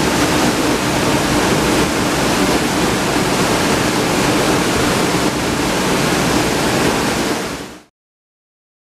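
Waterfall heard at close range, a steady dense rush of water pouring down into a rocky plunge pool. It cuts off suddenly near the end.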